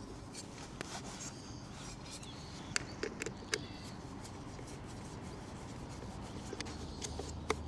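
Light rubbing and a few sharp small clicks of parts being handled as a motorcycle speedometer is fitted to its bracket with screws. Several clicks come around three seconds in and one more near the end.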